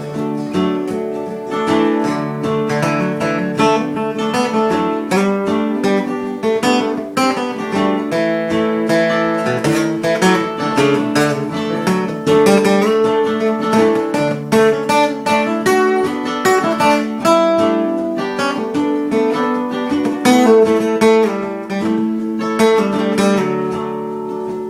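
Acoustic guitar playing an instrumental break in a folk-country song, strummed chords mixed with picked notes.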